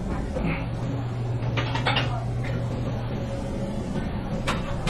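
Kitchen work noises: a few short knocks and clatters, a cluster about a second and a half in and one more near the end, over a steady low hum.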